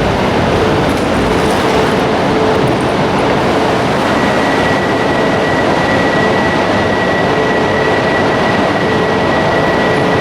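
Shinkansen train at the platform making a steady, loud mechanical noise. A high, steady whine comes in about four seconds in.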